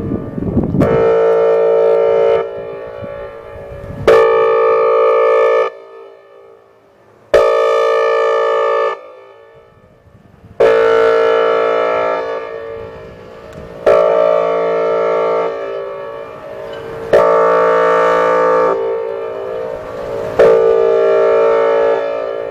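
Whelen 4004 outdoor warning siren sounding its air horn tone in a routine tornado siren test: seven steady, horn-like chord blasts of about a second and a half each, repeating roughly every three seconds, each trailed by a fading echo.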